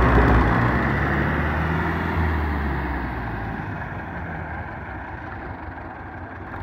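Diesel tractor engine working hard under load while towing a mud-stuck tractor out by a chain. It eases off and fades after about three seconds.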